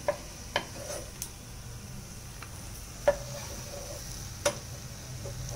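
A metal ladle clinking against a frying pan and a steel bowl several times as fried dry fish pieces are lifted out, over a soft steady sizzle of hot oil. The loudest clinks come about three and four and a half seconds in.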